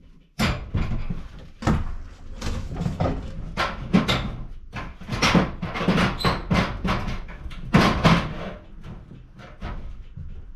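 Irregular scraping and knocking, one or two strokes a second, as damaged wood and clay are worked loose by hand from an old clay-and-timber ceiling.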